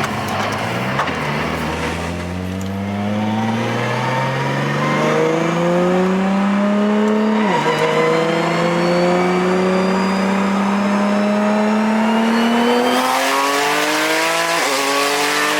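Nissan GT-R under hard full-throttle acceleration with traction control off. The engine note climbs steadily through a gear, drops at a quick upshift about halfway through, climbs again, and shifts once more near the end.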